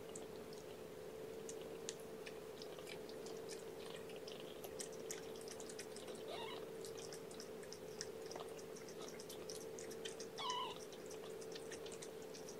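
A mother cat licking and grooming her young kittens: many faint small wet clicks, with two short mews about six and ten seconds in. A steady low hum sits underneath.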